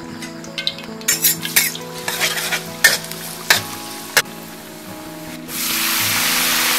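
A metal spatula scraping and clinking against a metal wok as chopped garlic is stirred in hot oil. About five and a half seconds in, a loud steady sizzle starts suddenly as wet bok choy goes into the hot oil.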